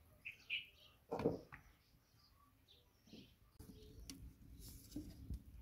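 Small birds chirping, with a few soft thumps, the loudest about a second in.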